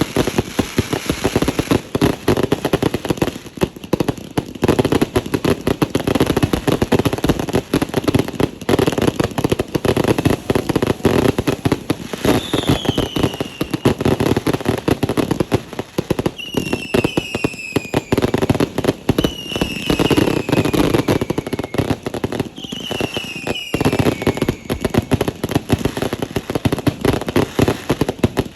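A large batch of fireworks and firecrackers going off together in a dense, continuous crackle of rapid bangs. Falling whistles cut through it four times in the second half.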